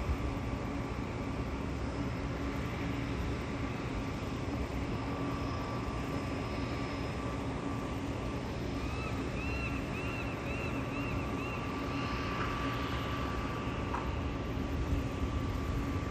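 Steady distant engine drone with a low hum under the open-air background, and a quick run of high chirps about nine seconds in.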